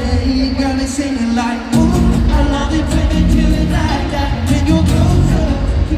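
Live pop music from a band with singing, heard from the stands of a stadium. The bass drops away for a moment, then the full band comes back in just under two seconds in.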